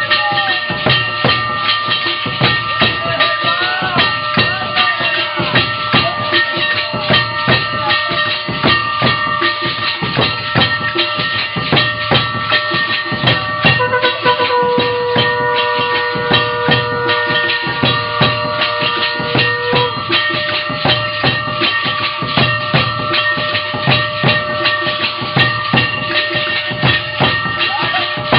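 Aarti music: fast, unbroken drum and cymbal strokes under steady ringing tones like temple bells. A long held note sounds for about six seconds in the middle.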